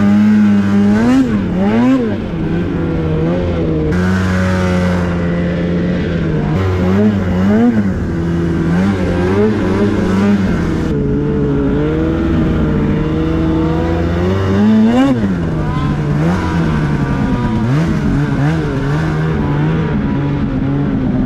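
Polaris 850 Patriot two-stroke twin in a 2022 Khaos snowmobile, breathing through a Sled Shed Cooker Thing silencer, running under way through snow. It holds a steady pitch, broken by quick throttle blips that rise and fall about a second or two in, again from about seven to ten seconds, and around fifteen to seventeen seconds.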